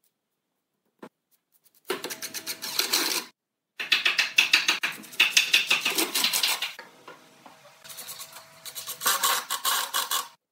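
Makita cordless impact driver hammering screws into a wooden bench: bursts of rapid clatter with short gaps between them. Partway through it eases off to a lighter run with a steady whine, then hammers again in a last burst near the end.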